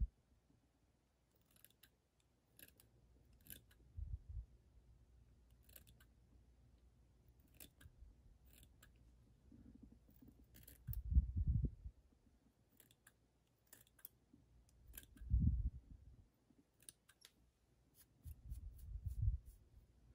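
Small fly-tying scissors snipping the crab fly's body material to shape, a scattered series of short, crisp snips. Between them come a few louder, dull low bumps from handling, around a third of the way in, past the middle, and near the end.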